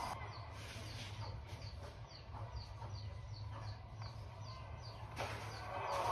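Badminton doubles rally on an indoor court: a sharp racket strike on the shuttle just after five seconds, over a steady low hall hum and a small high chirp repeating evenly about three times a second. A louder wash of arena noise swells near the end.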